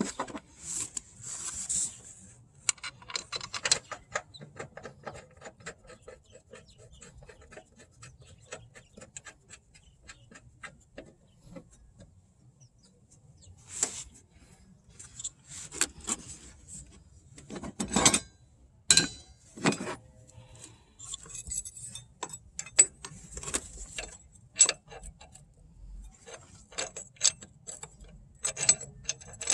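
Hand tools and fasteners clinking and clicking against metal in irregular bursts of small rattles, with a few sharper knocks in the middle.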